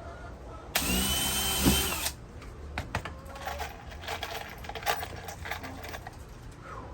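Power drill running in one burst of just over a second, drilling a hole in a wooden stair tread. Light clicks and knocks follow.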